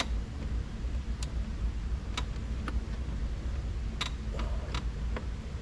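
Light, irregular clicks of a hand tool working an 8 mm bolt loose, about eight in all and unevenly spaced, over a steady low hum.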